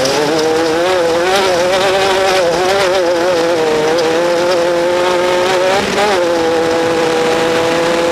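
Off-road race vehicle's engine running hard, its pitch wavering up and down with the revs for about six seconds, then holding a steadier note that slowly climbs.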